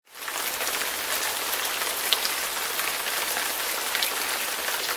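Steady, dense hiss with fine crackling, like rain falling on a surface; it cuts off suddenly at the end.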